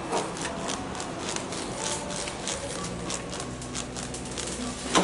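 Knife blade tapping and knocking against a wooden cutting board while slicing cuts into a whole mahi-mahi: a run of irregular light clicks, with a sharper knock near the end.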